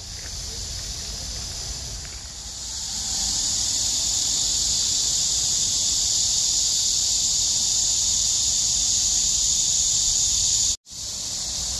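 A steady, high-pitched chorus of insects from the trees and grass, swelling about three seconds in and holding. It cuts out for a moment near the end.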